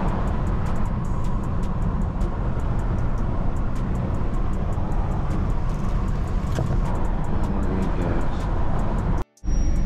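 Inside the cabin of a BMW F30 328i while driving: a steady low rumble from its turbocharged four-cylinder engine and the road. The sound cuts out completely for a moment a little over nine seconds in.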